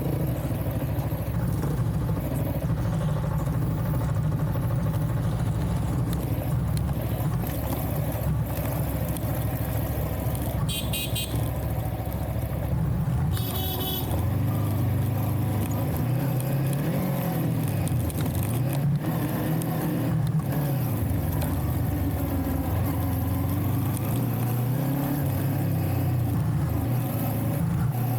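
Vehicle engine running while driving off-road, its pitch rising and falling repeatedly in the second half as it revs and eases off. Two short high beeps, like a horn, come about a third of the way in.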